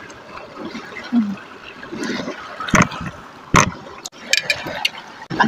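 Sea waves washing onto a pebble beach, water surging and draining back through the stones. Two sharp knocks stand out in the middle.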